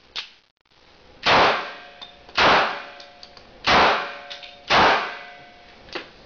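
Four gunshots from a Heckler & Koch gun, fired about a second apart, each followed by a short ringing tail.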